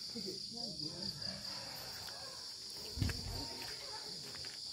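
Steady high-pitched chirring of insects, with a brief low thump about three seconds in.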